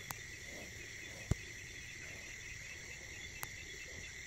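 Steady chorus of night insects trilling at two high pitches, with one sharp click a little over a second in and two fainter ticks, one right at the start and one about three seconds in.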